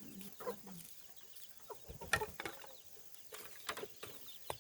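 Chickens clucking softly in the first second, followed by a few scattered sharp taps and knocks.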